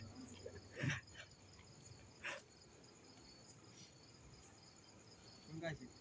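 Crickets chirping faintly and steadily at night, with a few brief soft noises, the loudest about a second in.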